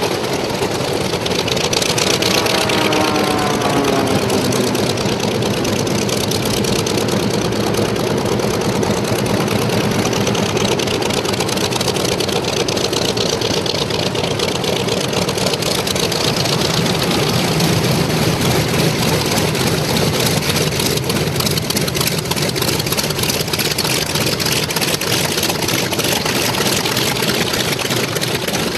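Grumman F7F Tigercat's twin Pratt & Whitney R-2800 radial engines running on the ground, a loud steady drone. A set of falling tones passes through it about two to four seconds in.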